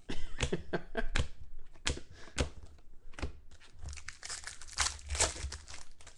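Plastic trading-card pack wrapper crinkling and tearing as it is handled, with sharp snaps and clicks of cards scattered throughout.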